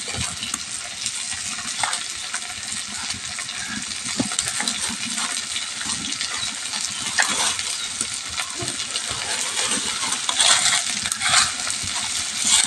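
Onions, green chillies and bay leaf frying in hot oil in a kadhai: a steady sizzle full of sharp crackles, getting louder near the end.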